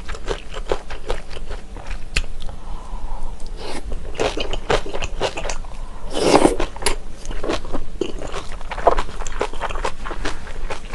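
Close-miked eating: wet chewing and biting with many small mouth clicks as kimchi and spicy Chinese glass noodles are eaten. A louder slurp of noodles comes about six seconds in.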